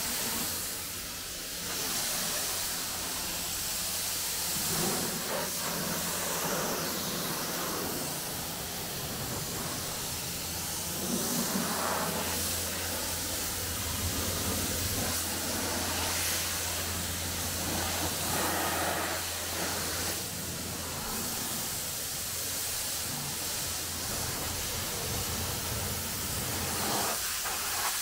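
High-pressure car-wash spray hissing steadily against a car's body, with a low machine hum underneath and small changes as the jet moves.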